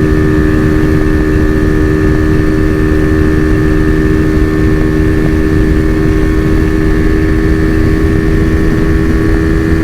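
Honda Fan 125 motorcycle's bored-out single-cylinder four-stroke engine running at steady high revs in fifth gear near top speed, about 140 km/h, with strong wind rushing over the microphone.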